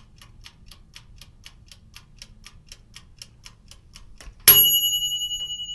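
Mechanical kitchen timer ticking about four times a second, then its bell dings once about four and a half seconds in and rings on, slowly fading.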